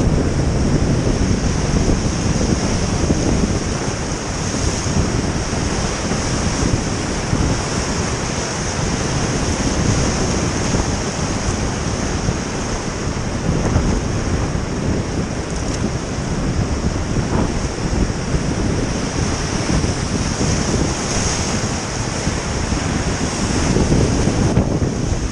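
Steady roar of the Colorado River's Hance Rapid whitewater, heard from inside the rapid aboard a raft, with wind buffeting the microphone. It grows a little louder near the end as the raft meets the big waves.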